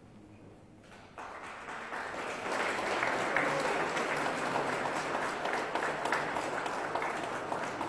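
Audience applauding, starting about a second in and swelling to a steady, dense clapping.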